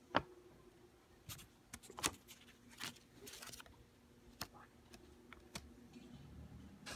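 Paper banknote handled and turned over in the fingers: a sharp click just after the start, then scattered crisp crinkles, clicks and short rustles of the paper.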